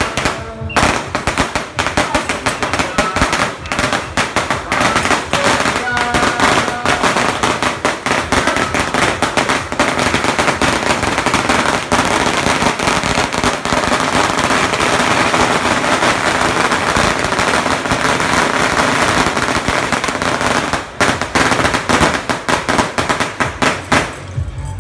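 A long string of firecrackers going off in a rapid, continuous crackle of sharp bangs, thinning briefly about 21 seconds in and stopping just before the end.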